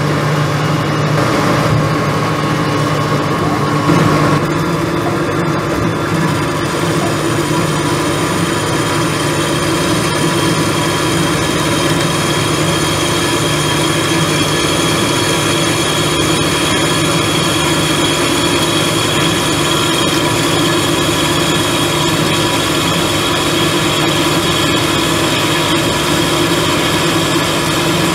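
Behringer HBP 360 A automatic bandsaw (1991) running: a steady machine hum with several steady tones, which shift in pitch about four seconds in.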